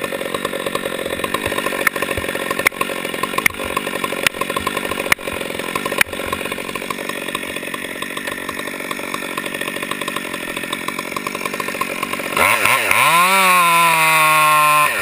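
Stihl two-stroke chainsaw idling, with a few sharp knocks in the first few seconds. About twelve seconds in it revs up to full throttle and cuts into the tree trunk, its pitch sagging slightly under load.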